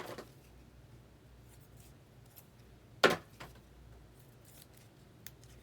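Rigid plastic card top loaders being handled: two sharp plastic clacks about three seconds apart, each followed by a lighter tick, with a few faint ticks near the end.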